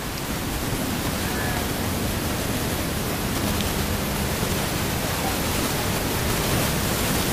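Steady rushing air noise of large ventilation fans running in the hall: an even, unbroken whoosh.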